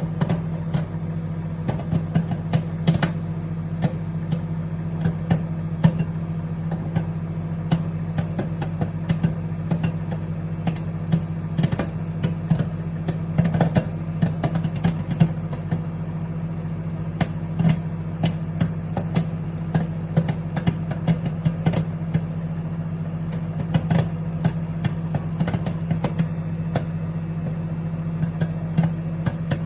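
Microwave oven running with a steady hum while the kernels in a microwave popcorn bag pop inside, many sharp irregular pops, several a second: the bag is in the middle of popping.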